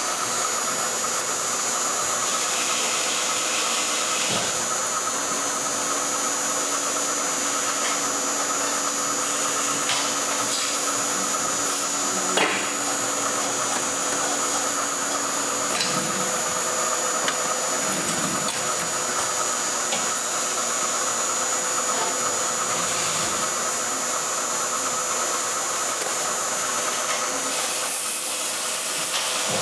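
Injection molding machine cycling: a steady mechanical hiss with a constant high whine. A lower steady hum runs from about five seconds in to about sixteen seconds in, while the mold opens and closes, and there is one sharp click about twelve seconds in.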